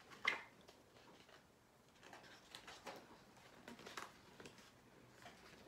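Pages of a picture book being turned and handled: a short paper rustle just after the start, then faint rustling and soft clicks.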